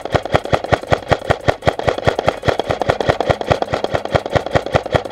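Airsoft electric rifle (Double Bell 807 SCAR-H AEG) firing one long full-auto burst, the gearbox cycling in an even, rapid rhythm of about seven shots a second.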